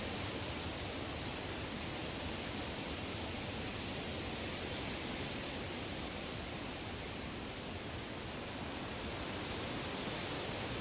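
Woodland ambience: a steady, even rushing noise with no birdsong or distinct events.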